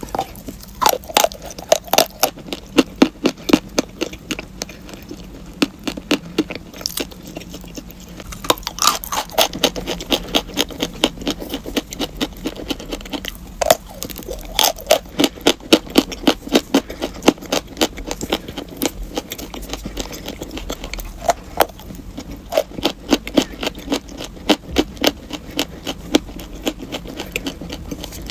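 Close-up crunching of chalk being bitten and chewed: rapid, sharp, crackly crunches in dense runs of several per second, with short pauses between mouthfuls.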